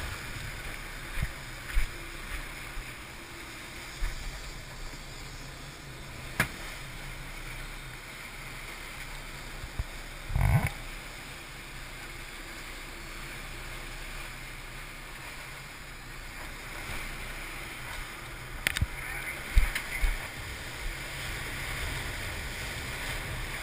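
Steady rush of a sportfishing boat's foaming wake, with wind on the microphone and a low rumble, broken by a few sharp knocks and bumps and a brief louder burst about ten seconds in.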